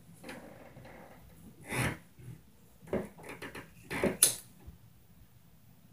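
Irregular thuds and knocks from the apartment upstairs, which the tenant below takes for stomping. There is one heavy thud a couple of seconds in, then a quick run of knocks, and the loudest and sharpest knock comes just past four seconds in.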